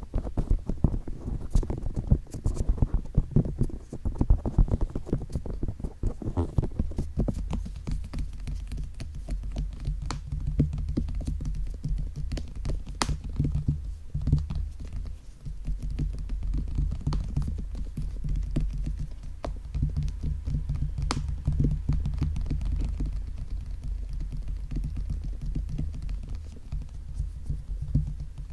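ASMR ear tapping and touching: fingers tapping quickly on microphone ears for the first several seconds, then rubbing them in a low, steady rustle with scattered clicks.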